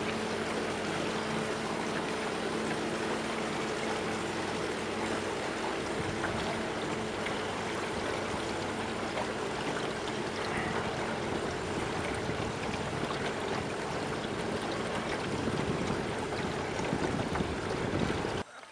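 Water rushing and lapping along the hull of a small boat moving across a calm lagoon, with a steady low hum in the first half that fades out. The sound cuts off abruptly just before the end.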